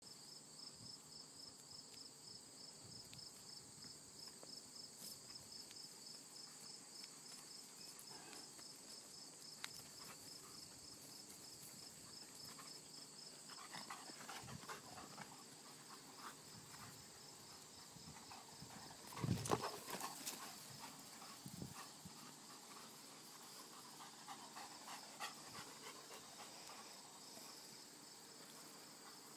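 Crickets chirping steadily in a fast pulsing trill, with soft scuffs and footfalls of a dog, goats and horses moving over the pasture ground. A brief louder sound breaks in about two-thirds of the way through.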